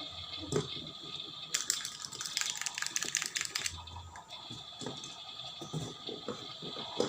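Toy kitchen set: a burst of rapid rattling and whirring lasting about two seconds, with small plastic knocks and clicks before and after.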